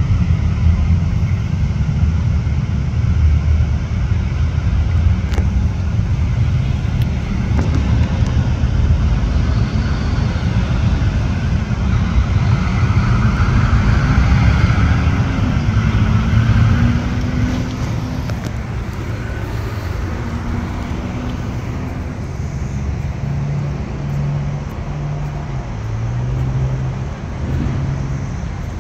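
Steady low rumble of road traffic and cars.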